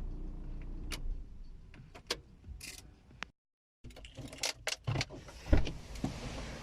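Street sound with a low traffic rumble and scattered sharp clicks and knocks. The sound cuts out completely for half a second midway, and the loudest knock comes about five and a half seconds in.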